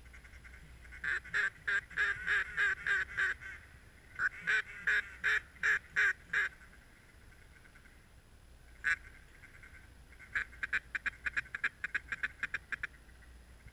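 Mallard-style duck quacking in strings of evenly spaced quacks: a string of about eight, another of about seven, a single quack, then a faster string of about a dozen near the end.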